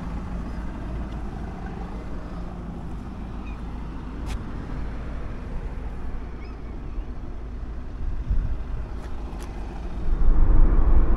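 Steady low engine and road rumble inside a van's cabin while driving, growing louder near the end, with a few faint clicks.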